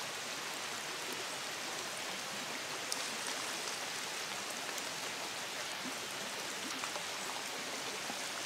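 Shallow woodland stream running over stones: a steady rush of water.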